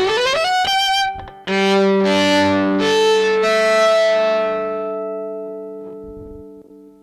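Yamaha SV-150 electric violin played through one of its built-in effects: a quick rising run, then several notes that overlap and ring on together, dying away slowly over about five seconds.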